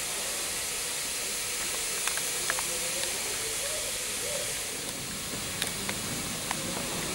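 Steady hiss of steam, with a few faint clicks.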